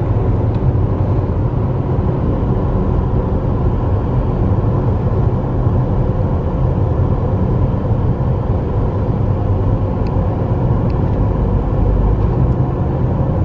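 Steady road noise inside a moving car's cabin: a constant low drone of tyres and engine at road speed.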